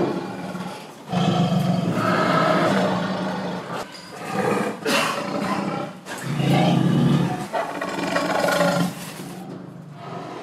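Several long, low animal calls, about four of them, each lasting a second or two with short breaks between.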